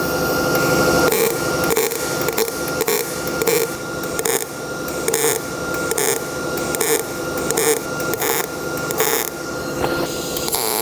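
Electric arc welding on a steel door hinge: the arc crackles and sizzles steadily, with brief breaks between short runs and a faint steady hum underneath.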